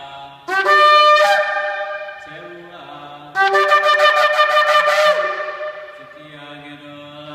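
Shofar blown in two loud blasts: a long call starting about half a second in, then, about three and a half seconds in, a second blast broken into a fast fluttering run of short notes.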